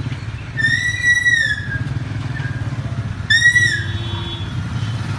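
Field Marshal 8 HP single-cylinder diesel engine running steadily, driving a water pump by a flat belt. Two loud high whistles sound over it, the first about half a second in and lasting about a second, the second shorter, past the three-second mark.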